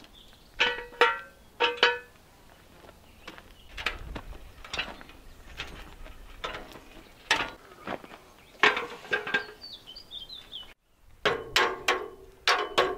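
Metal clanks from an old wrought iron gate and steel axle stands being handled and set down, each clank with a short ring. Near the end comes a quick run of ringing metal taps on the gate, about three or four a second.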